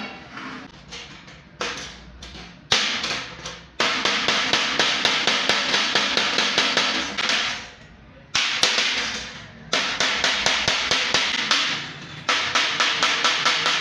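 Hand hammer striking a metal bracket against a thin sheet-steel drum: rapid runs of sharp metallic blows, about four or five a second, in several bursts with short pauses between them.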